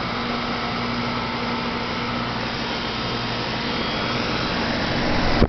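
Outdoor heat pump condensing unit running: a steady whoosh of the fan with a faint compressor hum, just after a defrost cycle. A low rumble builds near the end.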